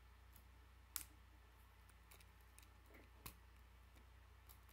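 K'nex plastic pieces clicking together as a connector is pressed onto a rod: a sharp snap about a second in, another a little after three seconds, and a few fainter clicks of plastic parts being handled.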